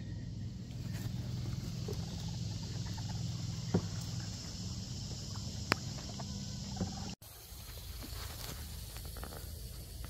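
Steady insect hiss over flooded woodland with a low hum beneath, broken by a couple of sharp taps. The sound cuts out for an instant about seven seconds in.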